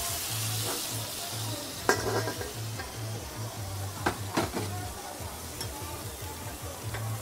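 Lobster sizzling on a hot flat-top teppanyaki griddle, with a strong hiss early on as liquid hits the steel, then fading. Three sharp metal clanks follow as a steel dome lid and spatula are set down on the griddle.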